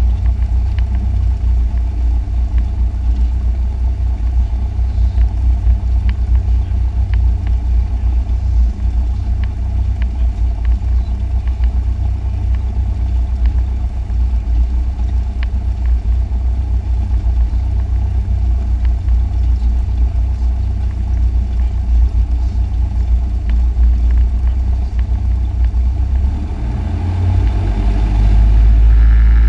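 Cessna 172's piston engine and propeller running steadily at low power, heard from inside the cockpit. Near the end the engine speeds up and gets louder.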